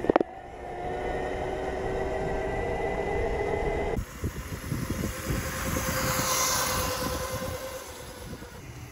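2000 W 48 V electric motor of a converted pocket bike whining steadily while riding, with road and tyre noise. After a cut about four seconds in, the whine passes by, growing louder and then fading near the end.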